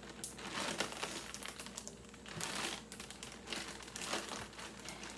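Clear plastic zip-top bag crinkling and rustling in the hands as it is handled and pressed closed, in several irregular flurries.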